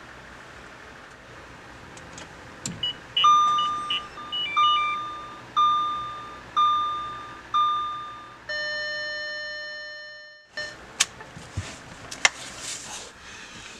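Audi S4 instrument-cluster warning chimes: five short beeps about a second apart, then one longer gong that rings and fades away over about two seconds. A few sharp clicks follow near the end.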